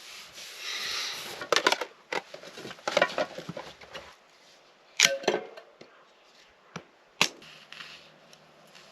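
Scattered knocks and clatters with some rustling, in several short clusters, as gear and things are handled and moved about.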